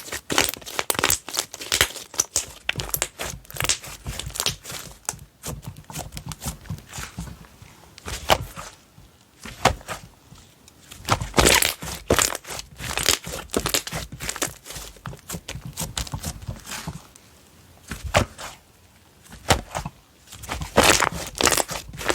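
Hands squishing and stretching slime, making many sharp crackling pops and clicks in irregular clusters. The clusters grow louder about halfway through and again near the end.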